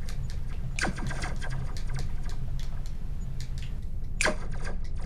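A video game being played with a handheld controller: rapid, irregular clicking over a steady low hum. Two quick falling zaps come about a second in and near the end.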